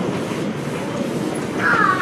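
7¼ inch gauge miniature-railway carriages rumbling and clattering over the rail joints as the train pulls away. A brief high-pitched call comes near the end.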